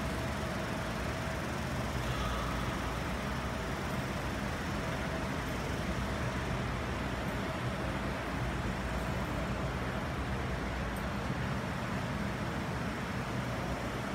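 Steady background rumble and hiss with a faint low hum, unchanging throughout and with no distinct events.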